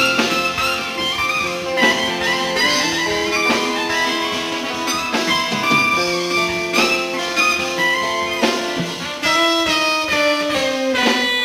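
A live rock band plays an instrumental passage: a lead instrument holds long, sustained notes over electric bass and drums, with sliding notes near the end.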